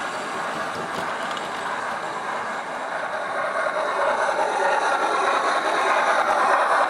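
Steam locomotive running sounds from a Loksound v5 sound decoder, played through a small speaker in a Hornby OO-gauge LMS 8F's tender, mixed with the model's running noise on the track. The sound grows louder from about halfway through.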